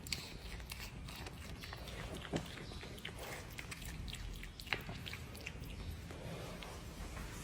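Red panda chewing and biting its food noisily: a quick run of wet smacks and crunches, with a few sharper, louder crunches.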